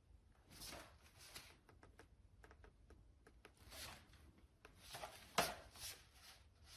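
Faint handling noise: several short bursts of rustling with scattered light clicks, the loudest click about five and a half seconds in.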